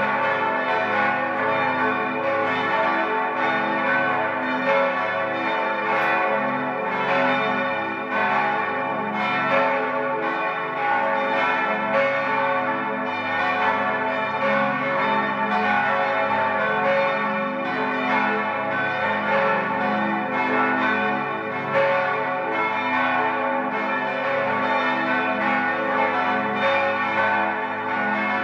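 Five church bells, tuned a°, c♯¹, e¹, f♯¹ and a¹, swinging together in a full peal. Their strikes overlap in a continuous, unbroken ringing.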